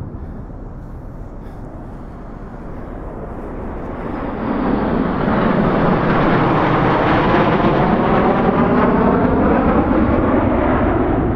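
Military aircraft passing low overhead: a loud roar that builds about four seconds in and holds, with a sweeping, phasing whoosh through it, over low wind rumble on the microphone.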